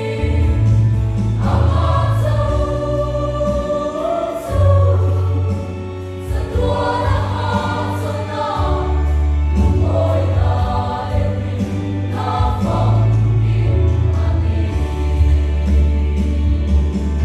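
Mixed choir of women and men singing a Mizo hymn in parts, sustained sung phrases over long, steady low notes.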